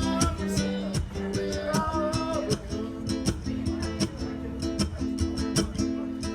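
Live band music: guitar over steady held chords and a regular beat, with a bending melodic line over the first couple of seconds.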